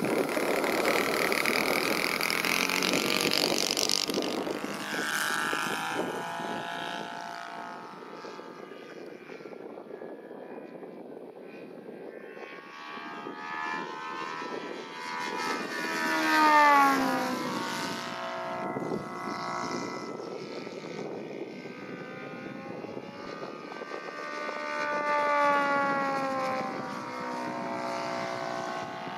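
Saito FG-90R3 three-cylinder radial petrol engine of a large model warplane running at high throttle, loudest for the first few seconds. Then it flies past repeatedly, its pitch sliding up as it approaches and down as it goes by, loudest about 17 seconds in and again about 25 seconds in.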